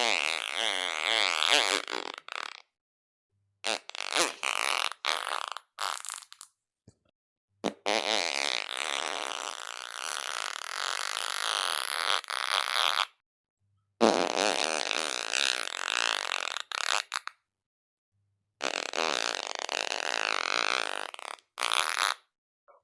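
A string of fart sounds, five or six in all, each with a wavering pitch and lasting from about one to five seconds, separated by gaps of dead silence.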